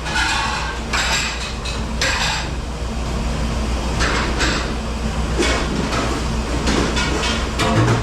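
Commercial kitchen dish-pit work: dishes and racks clattering and knocking in short bursts every second or so over a steady low machine hum.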